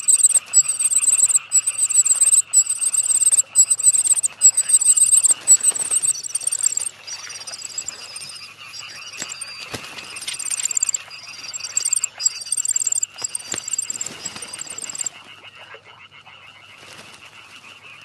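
Common cuckoo chick begging in a reed warbler nest: a continuous run of high, thin trilled calls, about two a second, loud enough to match a whole brood of reed warblers so that the foster parents keep feeding it. The calls fall to a faint level about fifteen seconds in.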